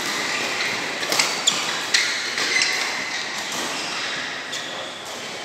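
Badminton rackets striking a shuttlecock in a quick doubles exchange: three sharp hits in the first two seconds, a couple of lighter ones soon after, and a faint one later. Steady background noise of a large hall.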